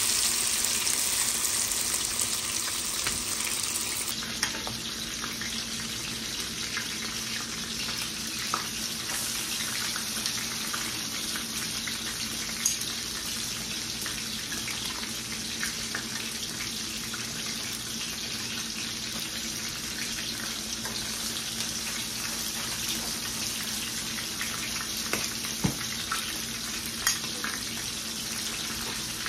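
Egg-battered eggplant slices sizzling in hot oil in a nonstick frying pan: a steady frying hiss, with a few sharp clicks scattered through it.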